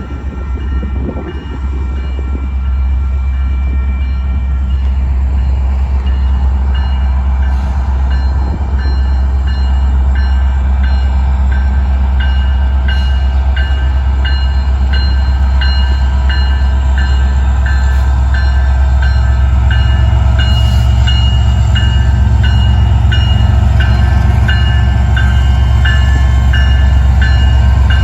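Diesel locomotives of a loaded Union Pacific rock train pulling away under power: a deep, steady engine rumble that slowly grows louder. From about four seconds in, a high-pitched tone repeats at a steady pace.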